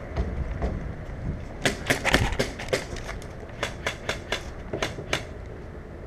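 Airsoft guns firing: about fifteen sharp, irregular cracks in two runs, one around two seconds in and another around four to five seconds in, over a low wind rumble on the microphone.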